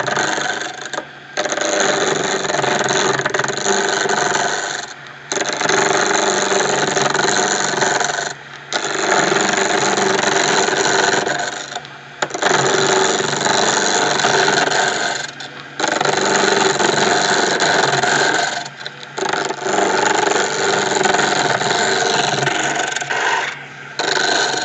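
Wood lathe running, turning a teak pen blank, with a steady motor whine under the noise of the cut. The sound drops away briefly about every three to four seconds, then comes back.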